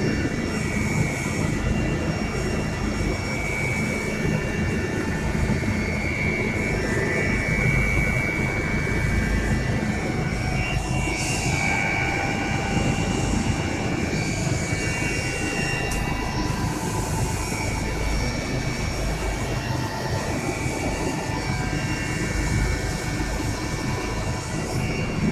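Helicopter running: a loud, steady engine and rotor drone with a high, slightly wavering whine over it.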